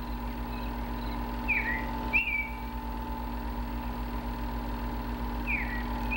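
A two-part whistled call, a quick falling note followed a moment later by a rising note that levels off, heard twice about four seconds apart. A steady low hum runs underneath.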